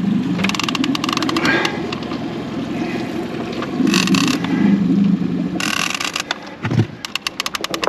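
Fishing reel clicking in quick bursts as a large Wels catfish is played on a hard-bent rod. The clicks come about half a second in, near four seconds and near six seconds, then turn into steady rapid clicking near the end. A low, steady hum from the boat's motor runs underneath.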